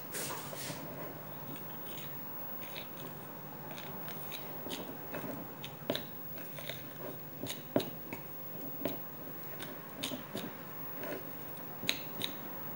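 Hands mixing and crumbling flour dough in a glass bowl: soft, irregular crunching and scraping with scattered light clicks.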